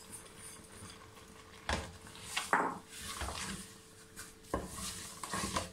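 Heavy wooden spoon knocking and scraping against the side of an aluminium cooking pot as sugar is stirred into thick cooked fruit, a handful of separate sharp knocks over a faint steady hum.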